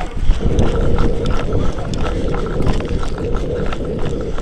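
Wind rumbling on the camera microphone, with scattered clicks and knocks of movement and gear.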